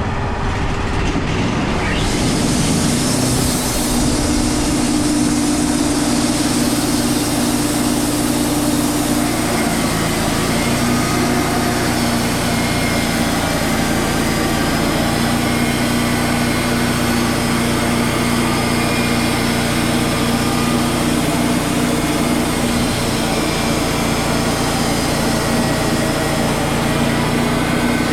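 Wood-Mizer LT35 band sawmill running steadily as it cuts a cedar log. Its main tone steps down slightly about ten seconds in.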